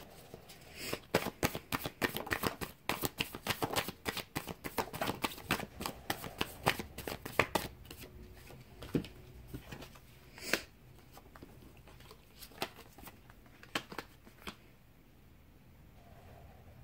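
Tarot cards being shuffled by hand: a quick patter of card-edge clicks for the first seven seconds or so, then scattered single clicks as cards are drawn and laid down on a wooden table. Near the end there are no clicks at all.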